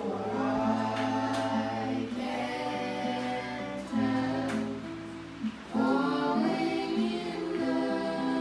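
Several voices singing a song together to an acoustic guitar, in sung phrases with a short break about five and a half seconds in.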